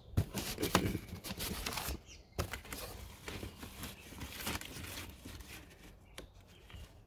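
Cardboard being handled and laid down under the wheel: rustling and scraping, with a few sharp knocks scattered through, getting quieter toward the end.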